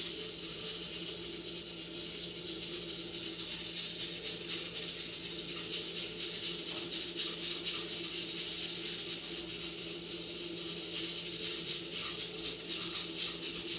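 Soft, scattered clicks of a small paring knife cutting through a tomato held in the hand, over a steady low hum.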